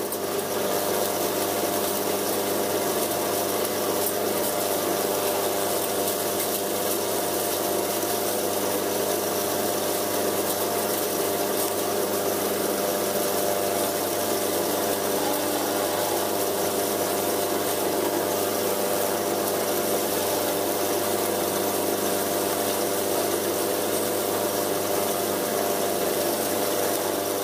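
Homemade electric sawdust grinder running steadily while wood shavings are fed into it: a continuous grinding rush over a steady motor hum.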